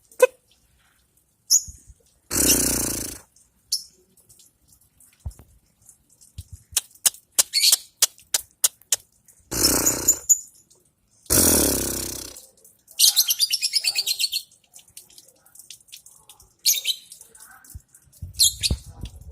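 Female lovebird calling: sharp high chirps and clicks, with a rapid rattling chatter trill (the 'ngekek' that contest lovebirds are trained to hold long) about thirteen seconds in. Three loud rushing bursts of about a second each come in between.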